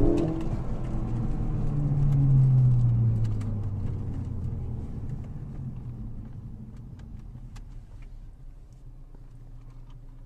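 2017 Ford Focus ST's turbocharged 2.0-litre EcoBoost four-cylinder pulling away, heard from inside the cabin. The engine note swells about two seconds in, then eases, and the whole sound fades away steadily.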